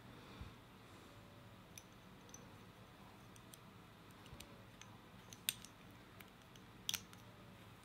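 Small plastic model-kit parts clicking and tapping as they are handled and fitted together, mostly faint, with a sharp click about five and a half seconds in and a quick double click near seven seconds.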